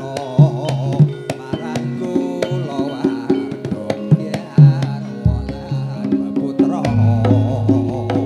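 Javanese gamelan (karawitan) playing a tayub piece: sharp kendang drum strokes over ringing metallophone notes, with a voice singing a wavering, ornamented line. A deep low note comes in about seven seconds in and holds.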